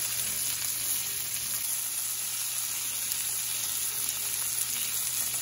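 Thick ribeye steak sizzling steadily in its rendered fat on a Blackstone E-Series electric griddle, held on its edge with tongs so the fat cap and sides sear and crust.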